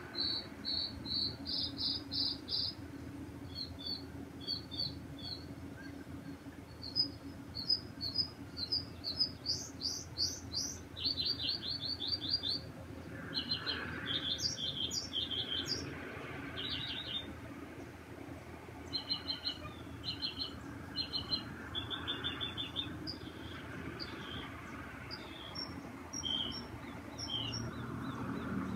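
A songbird singing at night: short phrases of quick, high chirps and trills, each note group repeated several times before it switches to a new one.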